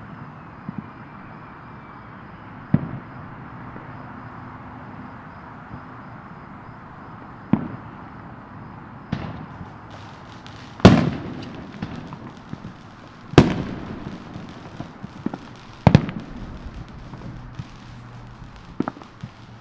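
Fireworks going off: about seven sharp bangs a few seconds apart, each trailing off briefly, the loudest about halfway through, with a patch of crackling between the bangs in the middle.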